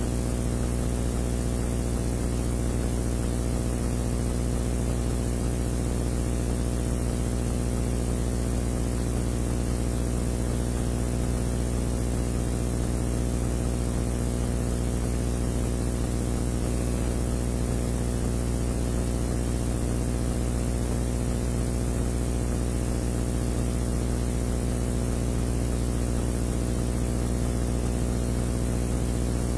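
Steady, unchanging low hum made of several even tones, with a constant hiss over it.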